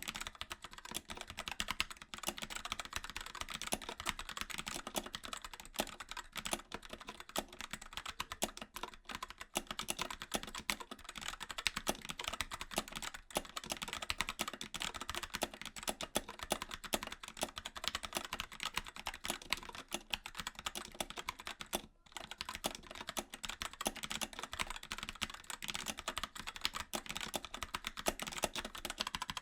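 Continuous fast typing on a mechanical keyboard with linear switches: a dense run of quick key clicks and bottom-out clacks, with a momentary pause about three quarters of the way through.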